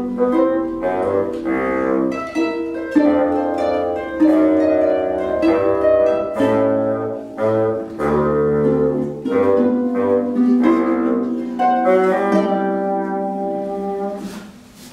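Instrumental music played on plucked strings, a run of picked notes that die away after each attack; the playing fades out in the last second or so as the piece ends.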